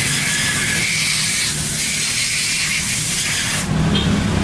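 Steady background hiss with a low hum underneath. About three and a half seconds in, the sound changes abruptly: the hiss drops away and a stronger low rumble takes over.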